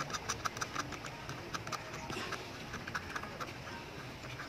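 Light plastic clicks and taps as a braided-line spool is worked by hand onto the axle of a homemade fishing reel. The clicks come quickly at first and then more sparsely, over a faint low hum.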